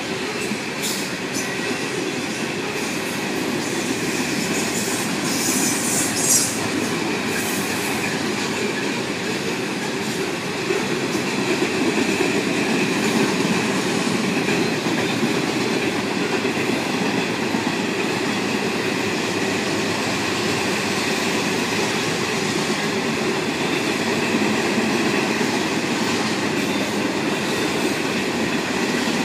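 Loaded coal cars of a Canadian National freight train rolling past at steady speed: a continuous rumble of steel wheels on rail with a faint, steady high squeal from the wheels, and a brief hiss higher up about five to seven seconds in.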